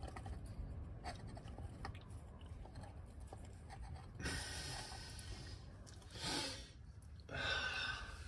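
A man breathing hard, with three loud breaths from about four seconds in, while he works the oil filter housing loose by hand. Faint taps and scrapes of his hand on the housing come before the breaths.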